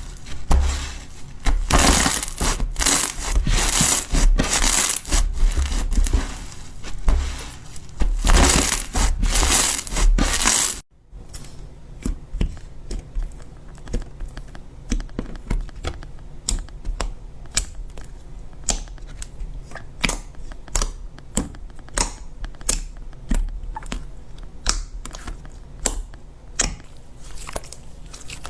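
Slime being handled: dense crunching and crackling for about the first ten seconds, then, after a sudden cut, a quieter run of sparse clicks and pops.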